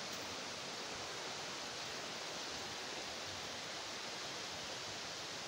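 Steady, even rushing hiss of running water.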